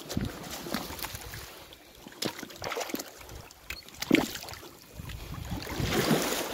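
Footsteps of rubber boots on loose shore stones and wading through shallow seawater, with scattered clicks of stone on stone and a louder slosh and splash of water near the end.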